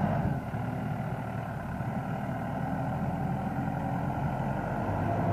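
Case JX75C loader tractor's diesel engine running steadily as the tractor manoeuvres, growing slightly louder toward the end.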